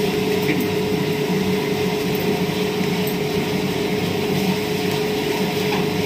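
Washing machine's wash motor running steadily with a hum, churning water and clothes in the tub.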